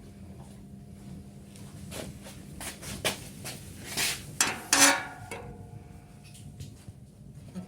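Metal parts being handled: clinks and knocks, with a loud ringing metallic clatter about five seconds in, over a steady machine hum.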